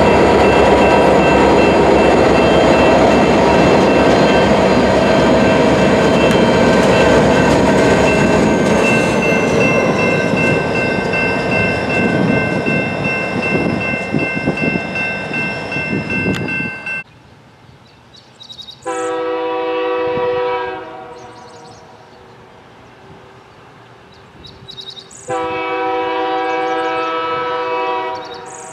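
BNSF GP40M and GP25X diesel locomotives rolling past and away, engines running with rail and wheel noise. After a cut, a locomotive air horn sounds two blasts: a shorter one, then a longer one about six seconds later.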